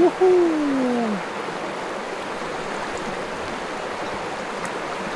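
Creek water rushing steadily. At the very start, a man's short wordless vocal sound slides down in pitch over about a second.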